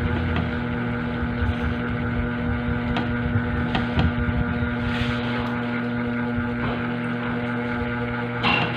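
A steady machine hum with a constant low tone, with scattered light clicks of a spoon and fork on plates.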